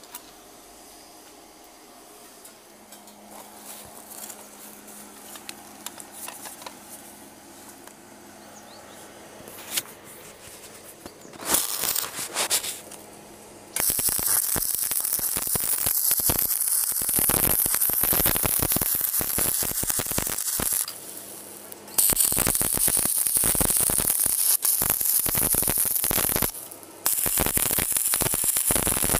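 A low steady hum for about the first ten seconds. Then a stick-welding arc is struck with a few short crackles and settles into a loud, continuous crackling sizzle as the electrode welds a mild steel square pipe railing post. The arc stops briefly twice and is restruck.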